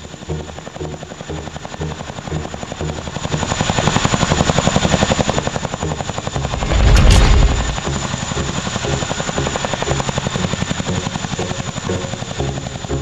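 CH-47 Chinook tandem rotors chopping fast and steadily. The chop swells louder from about three seconds in and peaks in a deep surge about seven seconds in. A slower beat of background music runs underneath.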